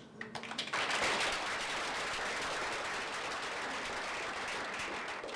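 Audience applauding: a few scattered claps that swell into full applause within the first second, held steady, then dying away near the end.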